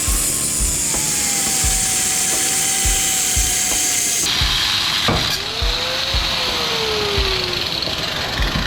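Power saw cutting through the cast housing of a 3 hp electric motor, a steady grinding run whose high hiss drops away about four seconds in.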